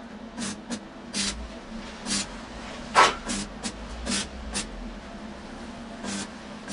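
Arc welding tack welds on a steel profile-pipe gate frame: about ten short crackling bursts, the loudest about three seconds in.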